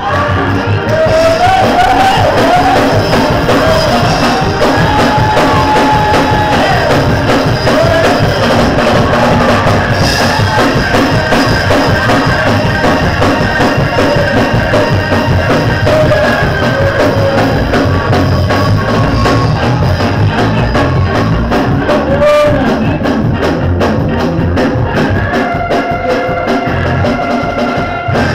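Loud gospel church music: an organ, likely a Hammond, playing with drums, and voices singing over it in wavering lines.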